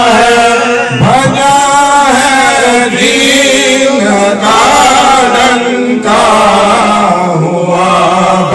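A man chanting a madha, a devotional Urdu praise poem, in long held notes that waver. The phrases are broken by short pauses for breath.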